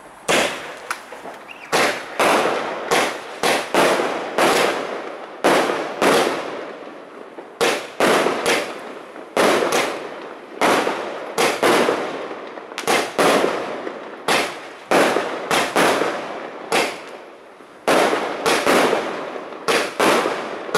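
Celtic Fireworks Fusion Trail 1.3g cake firing its shots in a fast, uneven string, about 35 in all at up to two a second. Each shot is a sharp bang trailing off into a short hiss. Loud.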